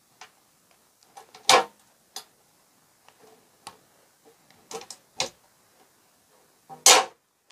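Hand pull rivet gun squeezed three times to set a small pop rivet: sharp clicks and clacks from the handles and jaws gripping and pulling the mandrel, with a loud click about a second and a half in and a sharp crack near the end, typical of the mandrel snapping off as the rivet sets.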